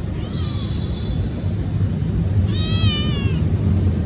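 Calico kitten meowing twice: a thin, high call that rises and then holds, and a louder call with a wavering pitch about two and a half seconds in. A steady low rumble runs underneath.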